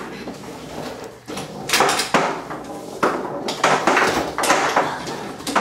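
Foosball game in play: sharp clacks and knocks, at irregular intervals, as the ball is struck by the rod-mounted players and bangs against the table's walls.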